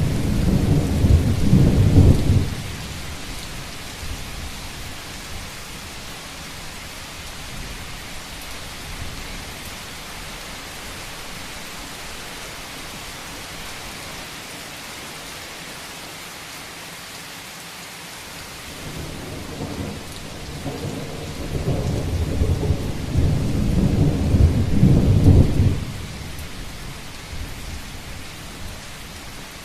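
Steady rain falling on a roof. A low rumble of thunder ends about two seconds in, and another builds up about two-thirds of the way through, then cuts off abruptly.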